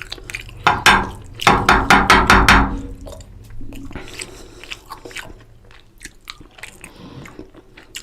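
Close-miked chewing and crunching on mutton and rice. A loud run of quick crunching sounds comes about a second in, then it settles into softer mouth clicks.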